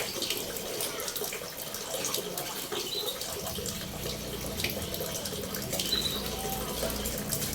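Steady running water, with a few brief high bird chirps. A low hum comes in about three seconds in.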